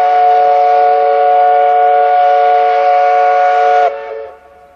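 Paddle steamer's steam whistle sounding a steady chord of several notes. It cuts off about four seconds in and dies away in a short fading echo.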